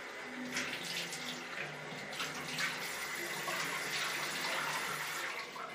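Water running from a tap and splashing into a bathroom washbasin, stopping near the end.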